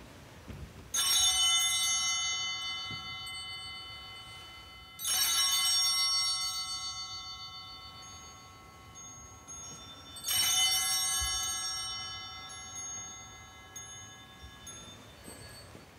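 An altar bell is struck three times, about four to five seconds apart, at the elevation of the chalice. Each strike rings out and fades slowly.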